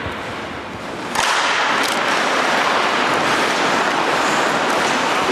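Steady rushing scrape that starts suddenly about a second in, with a few sharp clacks on top: ice hockey skate blades on the ice, with sticks or the puck striking.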